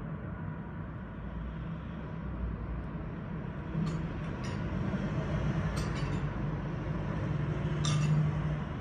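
Steady hum of city street traffic, swelling a little near the end, with several brief, sharp, high clinks about halfway through.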